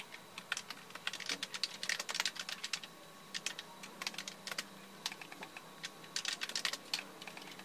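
Typing on a Logitech K480 wireless keyboard: irregular runs of quick key clicks with short pauses between them. The keys are noisy and stiff, with a clatter that is like a typewriter.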